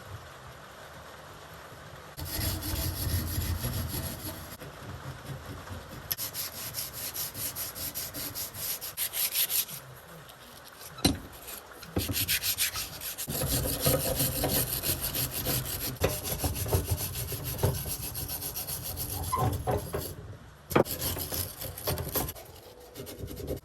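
Emery cloth rubbed by hand quickly back and forth over rusty steel to scour off the rust, in runs of rapid strokes broken by short pauses, with a couple of sharp knocks.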